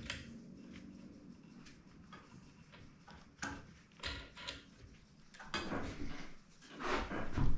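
Scattered light clicks and knocks of hands working metal parts of a sawmill blade sharpener while adjusting it: a few single ones about halfway, then a busier run, the loudest near the end.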